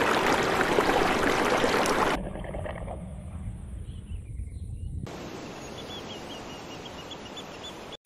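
Spliced outdoor nature ambience: a loud steady rush for about two seconds, then a quieter background. A run of faint high chirps comes near the end.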